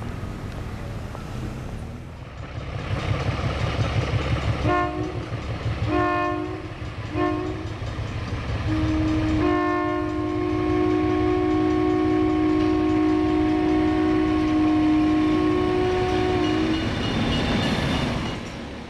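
An electric train's two-tone horn: three short blasts, then one long blast held for about seven seconds. Under the short blasts runs the train's low rumble.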